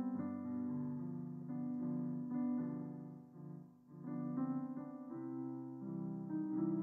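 A hymn played on piano: slow, held chords changing every second or so.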